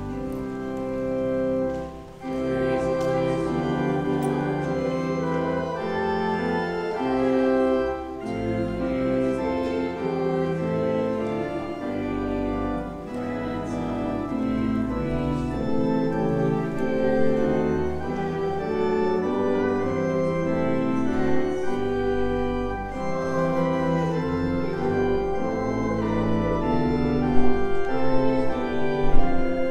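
Church organ playing a processional hymn in full, held chords that change about every second.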